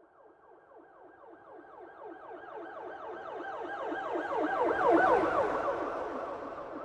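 Police car siren in a fast yelp, sweeping up and down several times a second. It grows louder as it approaches, is loudest about five seconds in, then fades as it passes.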